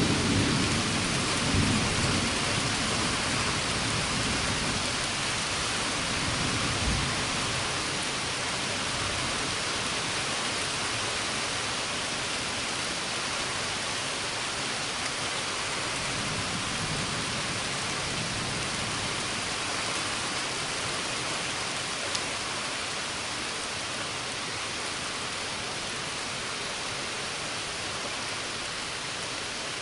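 Rain falling steadily during a thunderstorm, with thunder rumbling low in the first few seconds and again about halfway through.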